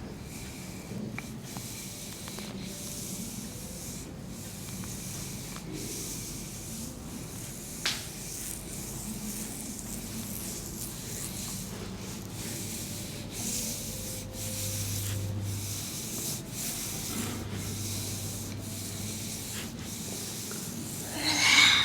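Oiled hands rubbing and gliding over bare skin in repeated massage strokes, a soft steady rustling. A short click comes about eight seconds in, and a brief louder burst just before the end.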